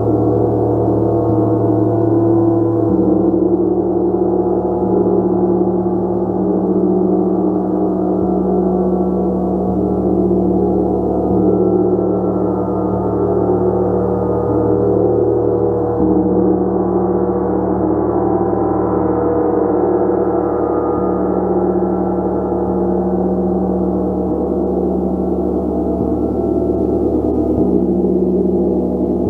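A gong played continuously, a steady dense wash of many overlapping tones, its low notes changing every second or two.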